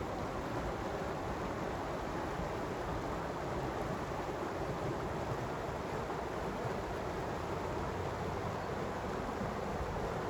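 Creek water flowing with a steady, even rush.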